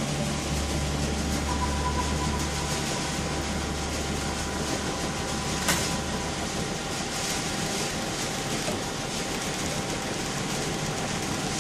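CNC vertical mill's table and saddle being power-fed along the X and Y axes: a low machine hum that drops about three seconds in and dies away near six seconds, with a brief thin whine in the first few seconds and a single click just before the hum fades, over steady hiss.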